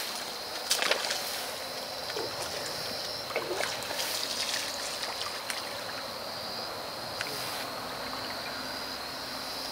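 Water trickling and lapping at the water's edge, with a few light knocks and a steady high-pitched tone underneath.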